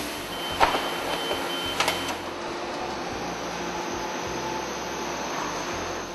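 Industrial machinery running with a steady hum and hiss. Two sharp metallic knocks come about a second apart, near the start, while a high beeping tone sounds on and off.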